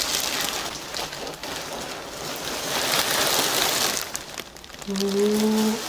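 A clear plastic garment bag crinkling and rustling as a padded coat is pulled out of it, loudest in the middle. Near the end a voice holds one note for about a second.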